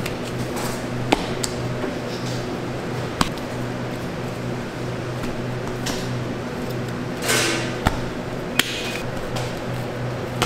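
Kitchen work sounds over a steady machine hum: a few sharp knocks and clinks, and a short swish about seven seconds in.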